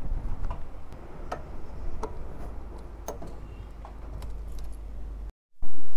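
Light metallic clicks and key jingles from a motorcycle's locking fuel-tank cap and key being handled during refuelling, over a low steady rumble. Near the end the sound cuts out briefly and something much louder begins.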